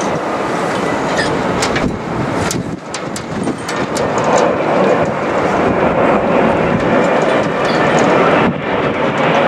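Jet airliner on approach to land, its engine noise a broad, steady rush that grows louder about four seconds in as the aircraft draws closer.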